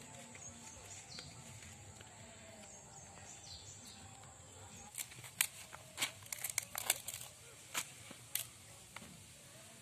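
Sharp snaps and clicks of a curved hand blade cutting the leaf stalks off kohlrabi bulbs, starting about halfway through. Before that, a quiet rural background with a few faint bird chirps.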